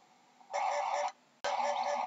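Hoopoe calling in three-note 'oop-oop-oop' phrases: one phrase about half a second in, and a second that begins about one and a half seconds in.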